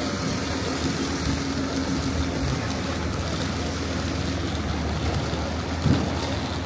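Steady low rumble of a vehicle engine with a constant hum running under it, and one short knock about six seconds in.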